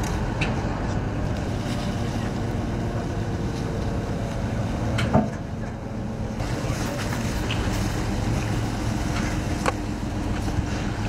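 Wind buffeting the microphone over a steady low engine rumble, with a single sharp knock about five seconds in.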